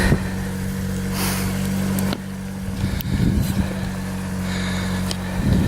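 Crash-damaged Mitsubishi Carisma's engine idling steadily after a cold start, with a few light clicks. The running note drops slightly about two seconds in.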